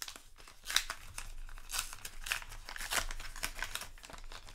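A foil trading-card booster pack wrapper being torn open and crinkled by hand, a run of irregular crackles and rips.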